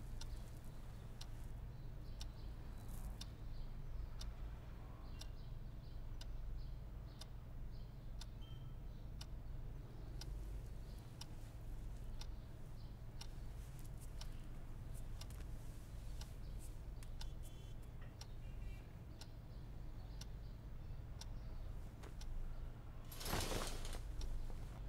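A clock ticking about once a second over a low, steady room hum. A brief rush of noise comes near the end.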